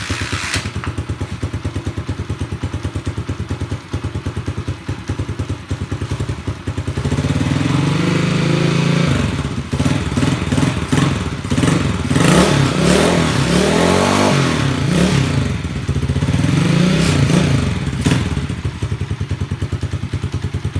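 Honda TMX 155's single-cylinder four-stroke engine through a stainless bullet pipe with its silencer fitted: it idles evenly, is revved up and down several times from about seven seconds in, and settles back to idle near the end.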